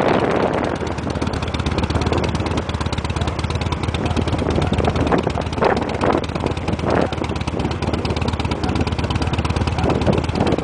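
Motorcycle engine idling steadily at a standstill, a low even drone.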